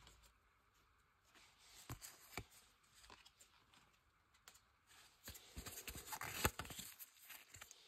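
Trading cards and their packs being handled: faint scattered clicks, then a denser run of crinkly rustling and card clicks near the end.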